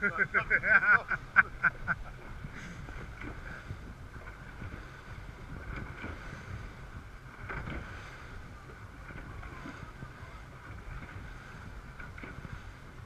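RIB under way in choppy water: wind buffets the microphone and water rushes along the hull, over the low, steady drone of twin Yamaha 350 hp V8 four-stroke outboards. A quick run of sharp slaps in the first two seconds, then an even rush.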